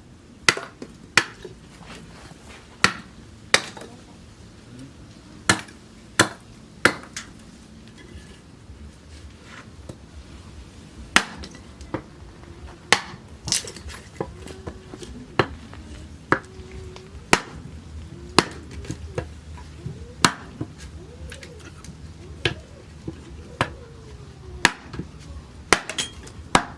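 A long series of single sharp strikes of a hand tool, one every second or so, with a pause of a few seconds partway through. Faint voices can be heard in the background.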